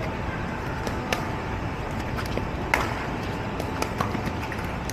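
Pickleball rally: several sharp pops of paddles striking the plastic ball, spaced a second or more apart, over a steady background of street noise.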